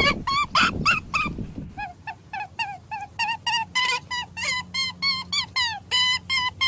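A rapid, unbroken series of short, high squeaky animal calls, about four a second. A low rumbling noise sits under them for the first second and a half.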